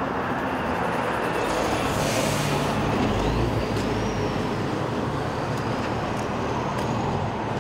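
Expressway traffic noise from close by, with a heavy truck rolling past. It is a steady rush of tyres and engines, with a low rumble that swells about three to four seconds in.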